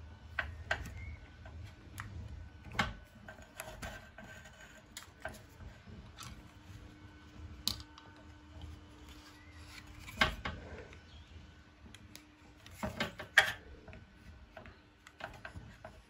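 Utility knife scoring around the outer sheath of an electrical cable: faint scraping with scattered light clicks and taps as the cable is handled, the loudest knocks about ten and thirteen seconds in.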